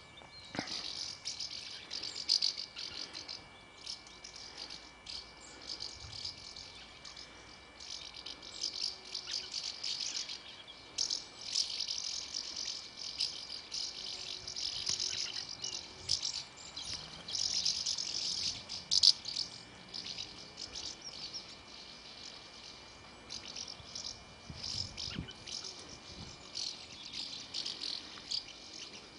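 A large flock of house martins calling: a dense chorus of short, dry twittering chirps that thickens in the middle and thins out for a few seconds near the end.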